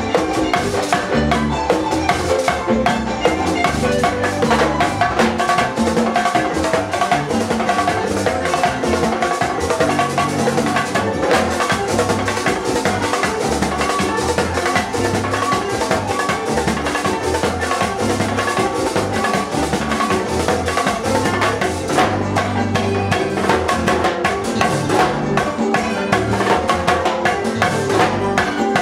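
Live Latin band music at full volume, with drums and percussion to the fore over guitar and keyboard, playing steadily without a break.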